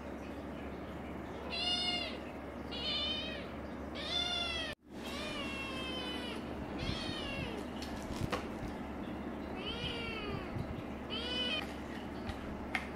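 Tabby kitten meowing about seven times, short arching meows in groups with a longer one about five seconds in and a pause after the fifth. The sound cuts out for an instant just before the fourth meow.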